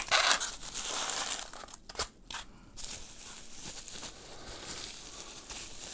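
Bubble wrap crinkling and rustling as a wrapped figurine is pulled out of its polystyrene foam insert, with a sharp click about two seconds in. The rustling is louder at first, then softer while the wrapped figure is handled.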